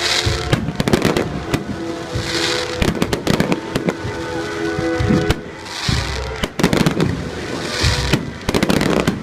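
Fireworks display: a rapid run of bangs and crackles from bursting shells, with deeper thumps about every two seconds.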